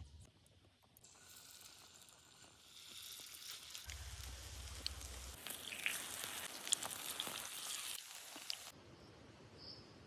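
Zucchini and chicken fritters sizzling in hot oil in a frying pan, a steady fizzing hiss with scattered pops and crackles. The sizzling cuts off abruptly near the end.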